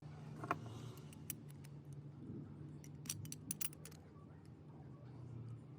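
Small metal parts clicking and clinking in a handful of sharp taps, several close together about three seconds in, over a steady low hum.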